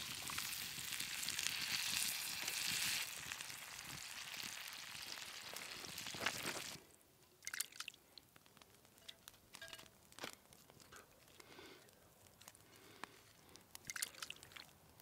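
Canned tomatoes tipped into a hot frying pan of onions over a wood fire, the pan sizzling, loudest in the first few seconds. About seven seconds in the sizzle cuts off, leaving quiet scattered clicks and wet sounds as the tomato sauce is poured from the pan into a glass baking dish.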